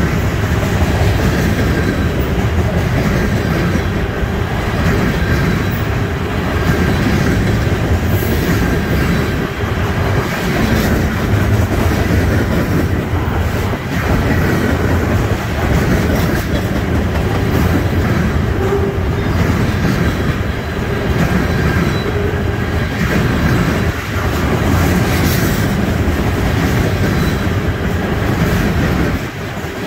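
Freight cars of a trash train rolling past close by: a steady loud rumble of steel wheels on rail, with irregular clacks as the wheels cross rail joints and a faint thin wheel squeal.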